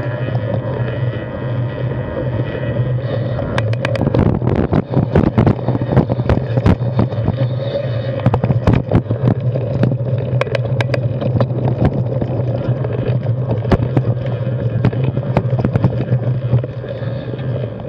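A fat-tyre mountain bike riding over rocky singletrack, heard from a bike-mounted action camera: a steady low rumble of tyres and wind on the microphone. From about three and a half seconds in come frequent sharp clacks and rattles as the bike hits rocks and ledges.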